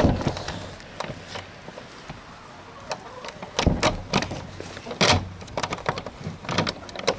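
Scattered knocks, clicks and clanks as the lock and latch of a chicken coop door are worked one-handed.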